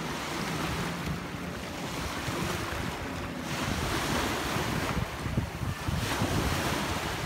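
Wind buffeting the microphone over choppy sea waves, with a jet ski's engine droning faintly as it speeds away across the water.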